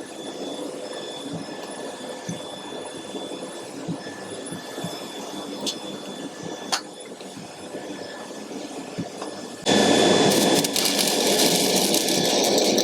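Low steady workshop noise with a few sharp clicks, then, near the end, a stick-welding arc strikes and runs with a sudden loud, even hiss as a second weld run is laid.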